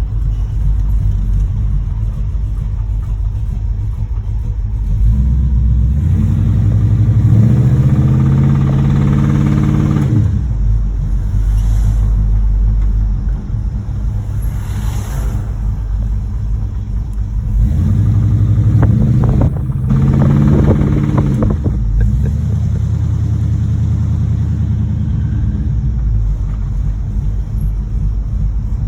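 1986 Monte Carlo SS V8 engine running as the car is driven, an engine the driver says has a rod knock. It speeds up twice with a rising pitch, about five seconds in and again near eighteen seconds in, each time easing back after a few seconds.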